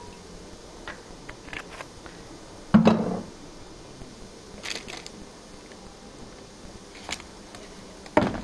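Light clicks and knocks of a metal baking tray being handled, with two louder thumps, one about three seconds in and one near the end.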